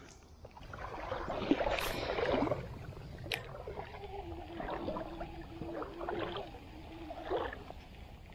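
Water sloshing and splashing near the surface as a just-released smallmouth bass is let go, then a spinning reel cranked steadily, its gears giving a steady whirring hum for a few seconds before stopping.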